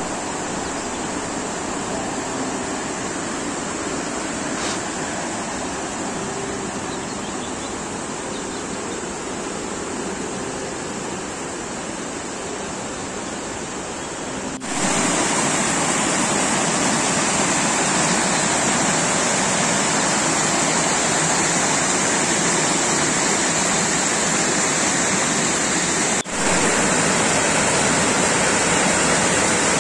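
Mountain stream rushing over rocks: a steady noise of running water. It gets louder about halfway through and again near the end, with two brief breaks where the recording is cut.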